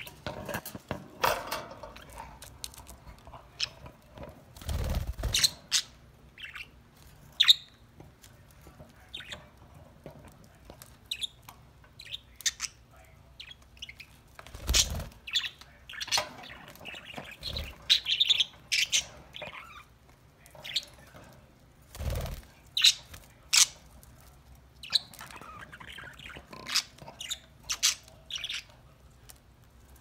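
Pet budgerigars chirping, with many short, sharp calls scattered through and no steady song. There are a few dull thumps, about three spread across the span.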